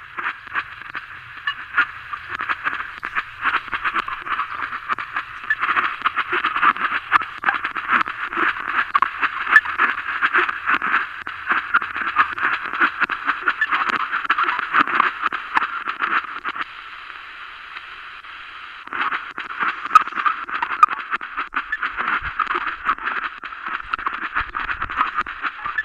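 Shortwave radio receiver tuned to 13.6 MHz, playing a strange signal: dense, rapid crackling and sputtering noise that sounds thin, as if band-limited, through the radio's speaker. It drops away for about two seconds roughly two-thirds of the way through, then returns.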